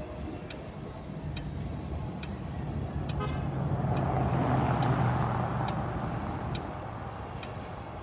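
A pickup truck driving past, its engine and tyre noise swelling to a peak about five seconds in and then fading as it moves off.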